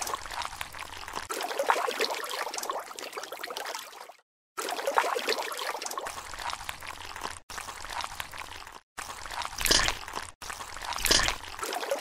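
Wet mud and water sloshing and trickling, broken by a few short cuts to silence, with two louder wet splashes near the end.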